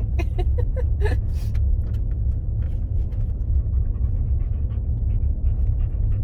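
Excited dog panting quickly inside a moving vehicle, over the vehicle's steady low rumble.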